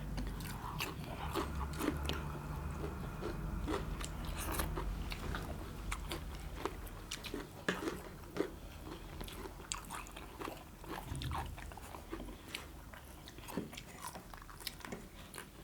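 Close-up biting and chewing on king crab, the hard shell and legs cracking and crunching between the teeth in many irregular sharp snaps.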